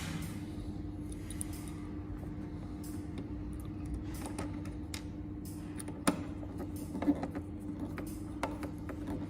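Screwdriver driving screws back into a geyser controller's front cover: small scattered clicks and creaks, with a sharper click about six seconds in and another about seven, over a steady low hum.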